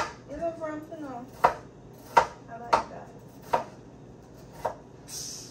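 Knife chopping on a cutting board: five separate, sharp knocks at an uneven pace, roughly one a second. A brief hiss sounds near the end.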